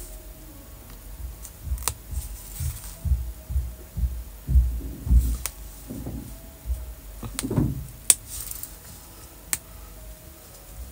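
Handling noise from peeling the clear carrier film off iron-on vinyl letters with a weeding hook: soft low thuds and rubbing of hands on the fabric and cutting mat, several sharp clicks, and two brief crackles of the plastic film.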